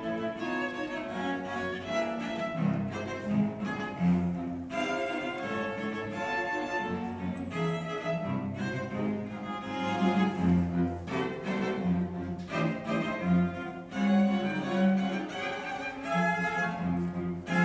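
Cello quartet playing: four cellos bowing together, with held low notes under a higher moving melody.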